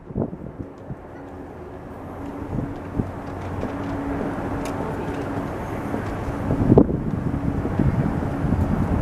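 Jet airliner passing overhead: a broad engine rush that grows steadily louder, with a faint steady hum under it for a few seconds. Wind buffets the microphone near the end.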